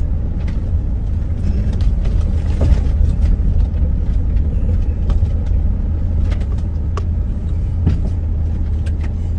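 Wind rumbling steadily on the phone's microphone, with a few faint clicks.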